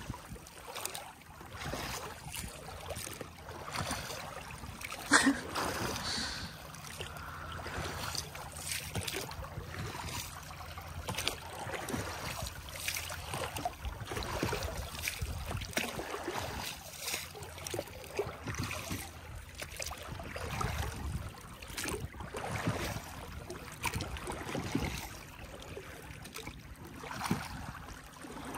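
Inflatable dinghy being rowed across calm water: oars dipping and pulling with repeated small splashes, and water gurgling along the hull.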